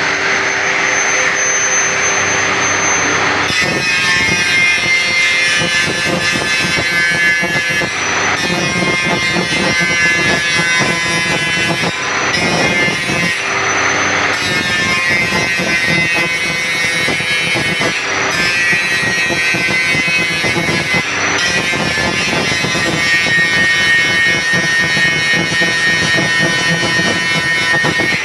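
Electric grinder running steadily while working a steel band saw blade, with short changes in tone every few seconds.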